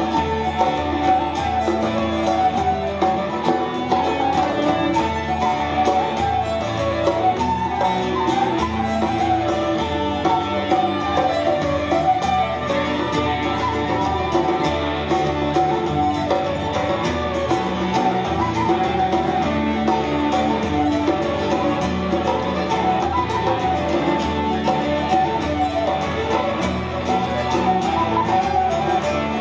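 Live Breton folk band playing a scottish dance tune: fiddle and transverse flute over strummed acoustic guitar and bass guitar, with an even dance beat.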